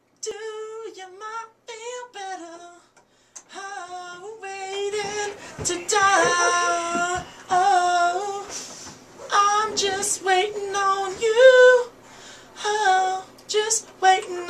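A single voice singing high, unaccompanied, in short sliding phrases with brief gaps between them.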